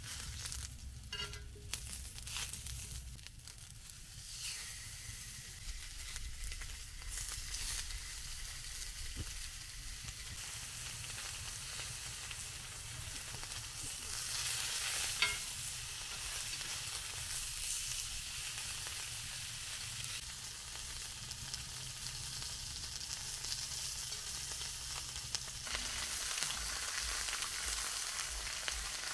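Potato wedges and meat patties sizzling in oil on a hot ridged cast-iron grill pan, with a few clicks of metal tongs moving them. The sizzle grows louder about halfway through, when a patty goes into the pan.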